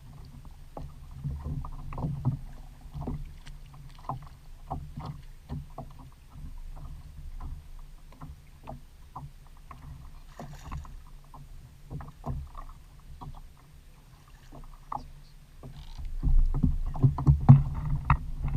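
Water lapping and slapping against a Hobie Outback fishing kayak's hull in short irregular knocks over a low rumble, growing louder near the end.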